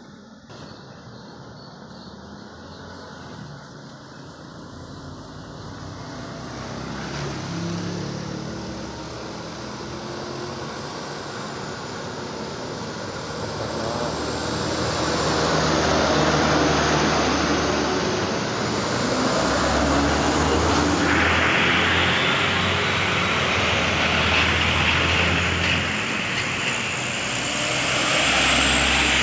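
Heavily loaded truck coming down a wet road, its engine drone growing louder as it approaches, with tyre hiss on the wet asphalt. A loud hiss joins in about two-thirds of the way through.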